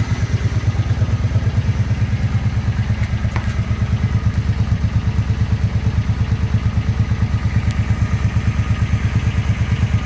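Suzuki Boulevard C50's 805 cc V-twin engine idling, a steady low exhaust beat made of quick, even pulses.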